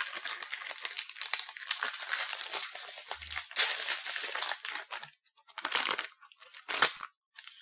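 Plastic snack bag crinkling and tearing as it is pulled open by hand. A dense crackle lasts about five seconds, then two short rustles come near the end.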